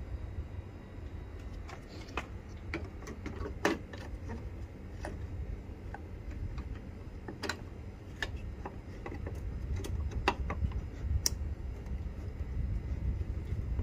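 Irregular plastic clicks and taps as a right-hand Mazda front bumper bracket is handled and pushed into place against the car's body, over a steady low rumble.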